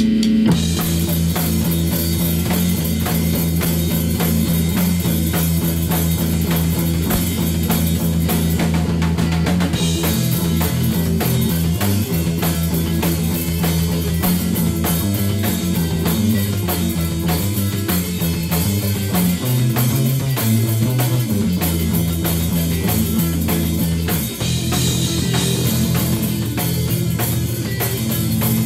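Rock music with a full band playing: a steady drum-kit beat and guitars. The whole band kicks in sharply right at the start.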